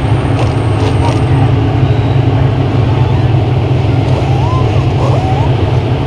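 Off-road race truck engine idling in the pits with a steady low drone, with a few short clicks about a second in.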